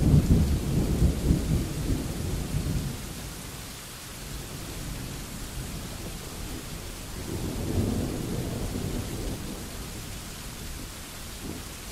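Thunderstorm: steady rain falling, with rolling thunder. A deep rumble at the start fades over about three seconds, and a second, softer rumble rolls in and dies away in the second half.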